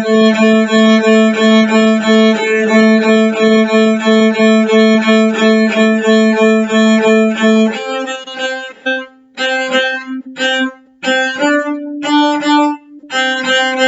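Cello bowed in short, evenly pulsed notes on the open A string, then about eight seconds in moving up to detached C naturals on the A string with a brief higher D in the middle.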